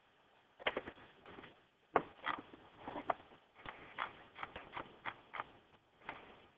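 A dozen or so light, irregular clicks and taps, starting under a second in, like a computer mouse and keyboard being handled at a desk.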